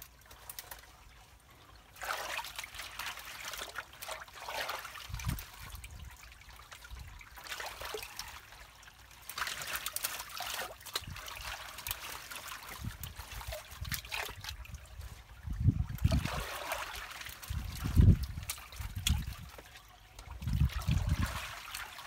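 Muddy water running through a drain inlet clogged with branches, with dull low knocks in the second half as a gloved hand pulls the sticks out of the water.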